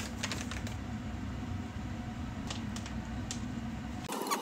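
Steady low mechanical hum, with a few soft taps and crinkles near the start as powder is shaken from a foil packet into a glass bowl. About four seconds in the hum cuts out and a hissier noise takes over.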